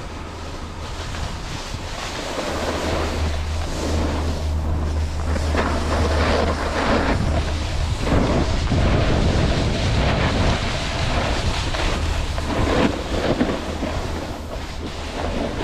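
A snowboard sliding and carving down a groomed ski slope, its edges scraping on the packed snow, with wind rumbling on the action camera's microphone. It grows louder as the board picks up speed, peaking about eight seconds in.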